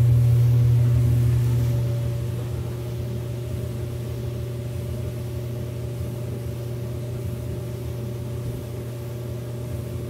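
Kenmore front-load dryer's drive motor running with a steady low hum after the drum was spun by hand to get it going, easing off about two seconds in. The motor is weak: it will not start on its own.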